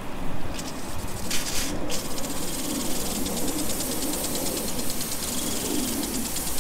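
Impact sprinkler starting up about a second and a half in. A hiss of spraying water follows with the fast, even ticking of the impact arm, over a low rumble.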